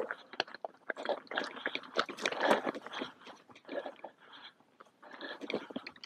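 Irregular crunching footsteps on loose stones and gravel, with scrapes and scuffs between steps.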